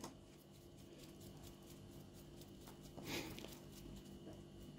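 Near silence: quiet workshop room tone with a few faint handling clicks, and one brief soft rustle about three seconds in.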